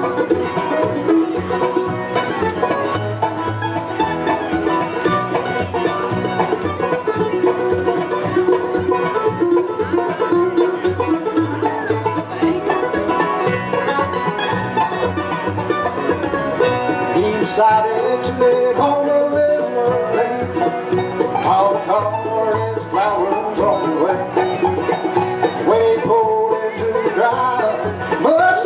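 Bluegrass band playing live with banjo prominent over upright bass, mandolin, acoustic guitar and a lap-style resonator guitar, with sliding notes in the second half.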